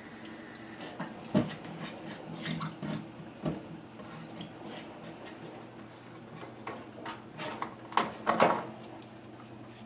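Kitchen handling sounds: scattered light clinks and knocks of a pot and utensils, with water handled in the pot, over a faint steady hum. The loudest knocks come about a second and a half in, at three and a half seconds, and in a cluster near the end.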